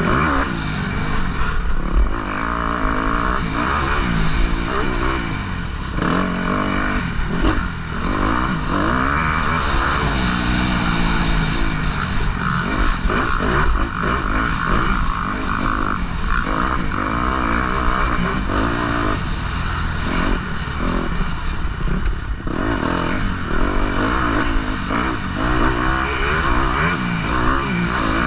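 Motocross dirt bike engine revving up and down again and again at racing pace, heard from the rider's helmet.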